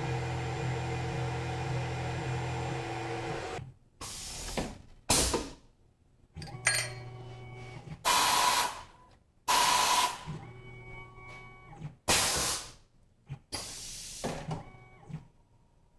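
Tormach PCNC 1100 CNC mill running its program with no part in the vise. A steady motor hum cuts off about four seconds in. Then come about seven short, sharp air hisses at irregular spacing, with quieter motor whines between them, as the automatic tool changer works.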